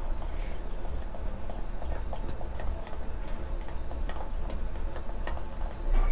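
A fork beating thick yogurt and gram-flour paste in a steel bowl: quick, irregular clicks and taps of the fork against the bowl, to beat out every lump.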